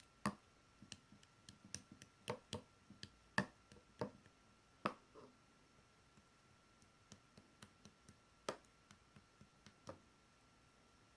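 Marbled slime being worked by hand, giving a string of sharp, irregular clicks and pops, thickest in the first half and a few more near the end.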